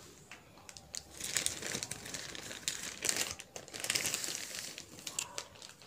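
Clear plastic sleeve around a laptop crinkling on and off as the laptop is lifted and turned in the hand.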